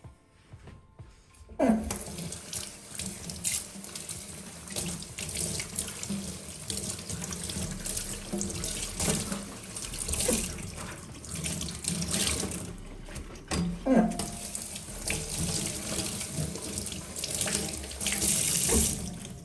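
Kitchen tap running into a stainless steel sink while a cleaning cloth is rinsed under the stream. The water comes on suddenly about two seconds in and shuts off right at the end.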